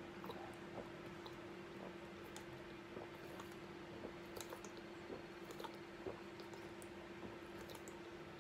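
A man gulping water from a plastic bottle: soft swallowing clicks, irregular, about one or two a second, over a faint steady hum.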